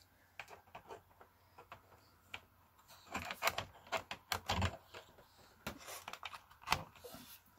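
A run of light, irregular clicks and taps of hands handling a laptop and its keys. They are thickest in the middle, with one sharper click near the end.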